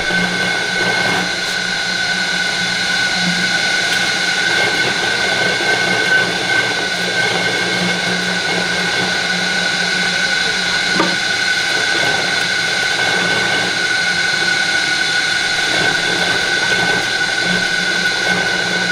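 Kudzu-root juicing machine running steadily, a motor hum with a constant high whine over it.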